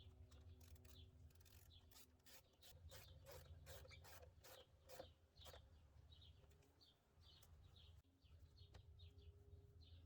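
Faint scraping and clicking of hand work on the engine's intake hoses and clamps, in a quick run of strokes in the middle, with birds chirping in the background.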